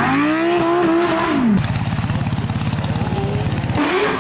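Racing engine revving hard, its pitch climbing, then dropping sharply as the throttle closes about one and a half seconds in. It settles into a fast, low, pulsing burble for about two seconds, then revs up again near the end.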